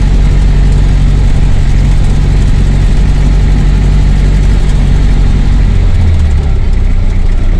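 Loud, steady engine drone and rough road rumble of a vehicle driving on a dirt road, heard from inside the cabin. About six seconds in, the low drone briefly rises, then drops.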